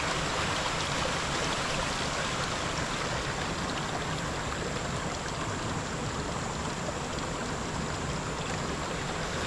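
River water running over and around big rocks, a steady rush of flowing water.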